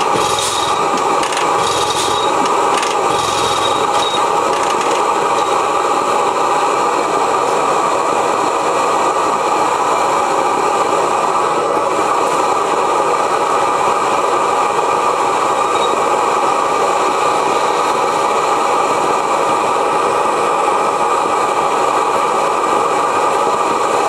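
Steady hissing roar of a propane burner heating the hot tube of a 1905 Reid two-cycle oilfield engine. In the first four seconds a few evenly spaced clicks sound over it, about one every two-thirds of a second.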